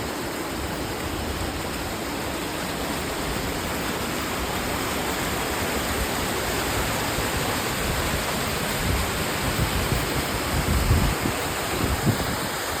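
Waterfall rushing: a steady, dense hiss of falling water. Irregular low rumbling thumps join it in the last few seconds.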